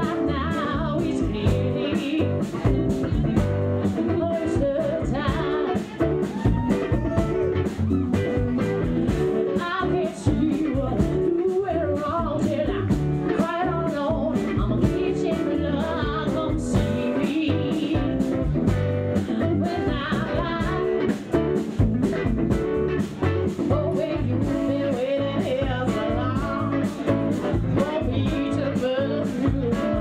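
A rock band playing live, with a woman singing into a microphone over electric guitar, bass guitar and drums keeping a steady beat.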